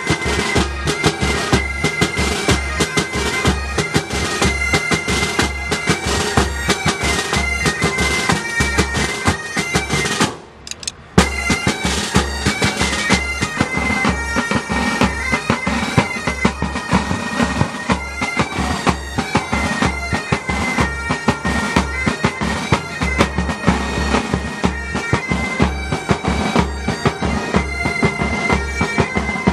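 Military pipe band playing: bagpipes with steady drones under a shifting chanter melody, with drum beats. About ten seconds in, the music drops out for under a second and resumes with a sharp click.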